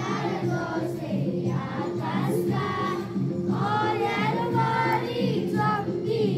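A choir of voices singing a slow song over steady instrumental accompaniment with held notes.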